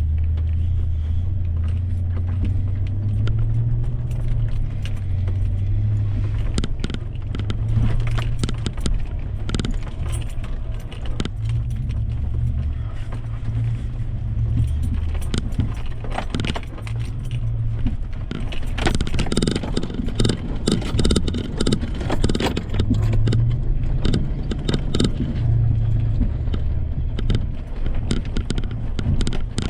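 Off-road truck driving over rough trail, its engine running low and steady under load, with many small rattles and clicks from the vehicle jolting, thickest in the middle of the run.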